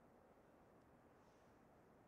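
Near silence: faint steady background noise.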